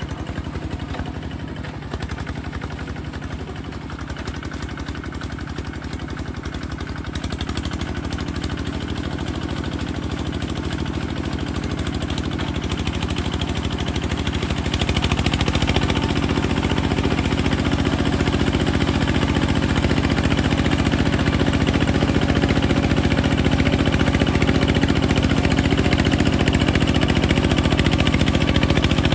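Small bulldozer's engine running steadily, growing louder about a quarter of the way in and again about halfway, then holding.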